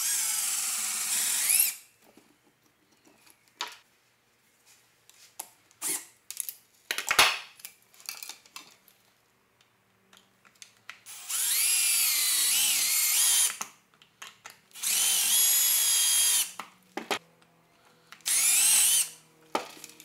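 Cordless drill boring out a small copper fastener on a metal taillight bracket, run in four short bursts with its whine rising and falling as the trigger is eased. Light clicks and knocks of the metal part being handled come between the runs.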